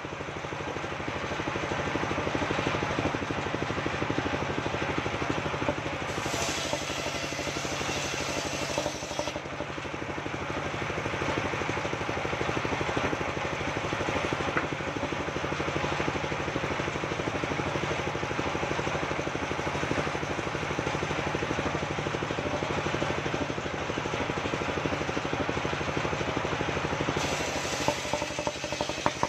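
Engine-driven mobile circular sawmill running steadily, its large circular blade ripping waru wood into boards. A harsher, hissier cutting sound joins about six seconds in for about three seconds, and again near the end.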